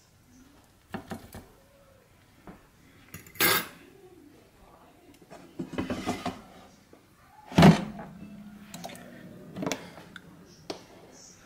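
An air fryer's basket being handled: about six sharp clatters and knocks, with short scraping between them. The loudest knock comes about two-thirds of the way through.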